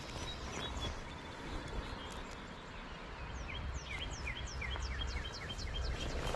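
A songbird singing: a few thin, high whistled notes in the first second, then a fast run of about a dozen repeated sweeping notes from about halfway through that stops just before the end. Under it runs the steady hiss and low rumble of a flowing river.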